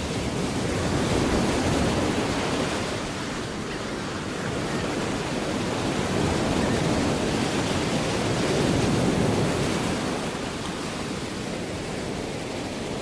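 Surf sound effect: sea waves breaking and washing ashore in a steady rush, swelling twice.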